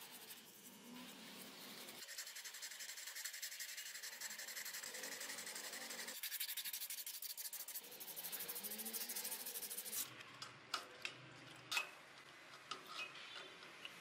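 Rapid back-and-forth rubbing strokes of an abrasive worked by hand, as in sanding or filing. Near the end the strokes stop and a few light, sharp clicks and taps follow.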